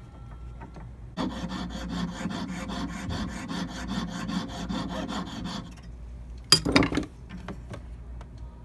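Jeweler's saw cutting a notch into a gold band ring, a fast, even run of rasping strokes that starts about a second in and stops after four or five seconds. It is followed by a brief loud clatter.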